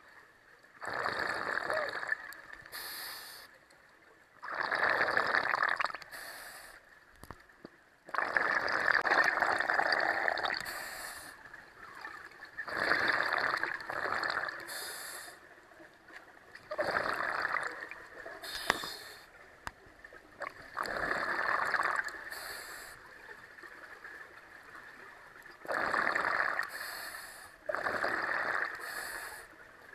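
Scuba diver breathing through a regulator underwater: rushing bursts of exhaled bubbles and hissing breaths come every couple of seconds, with quieter gaps between.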